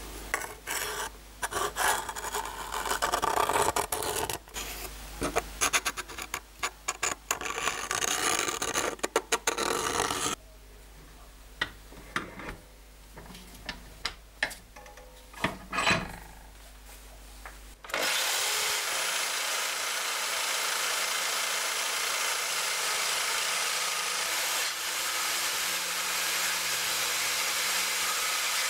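Electric jigsaw, clamped upside down in a bench vise, cutting a block of wood with a steady, even running noise. It starts about two-thirds of the way in, after irregular scratchy rubbing and a few scattered clicks.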